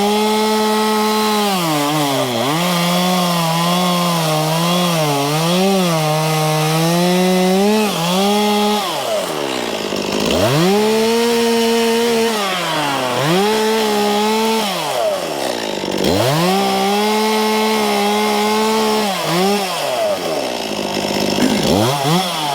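Two-stroke chainsaw cutting at full throttle in a series of short cuts, the pitch wavering under load. It drops back toward idle several times between cuts and revs up again, typical of limbing felled spruce trees.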